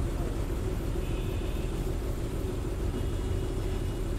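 Bus engine and road rumble heard from inside a moving bus: a steady low drone.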